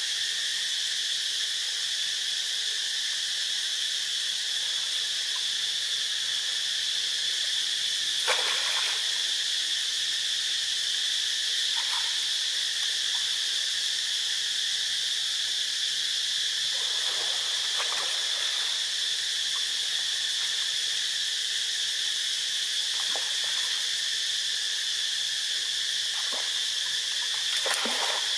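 Steady, high-pitched drone of insects, with a few short splashes of water from monkeys swimming: one about a third of the way in, a couple around two-thirds, and one near the end.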